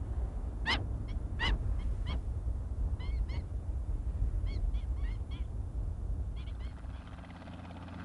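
A flock of waterbirds calling: short, high calls that rise and fall, singly and in quick twos and threes, over a steady low rumble that eases off near the end.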